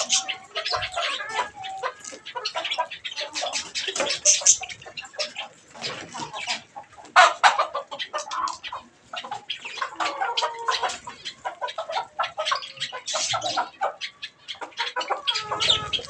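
A flock of budgerigars chattering: a dense, continuous run of short chirps, clicks and warbles, with a louder chirp about seven seconds in.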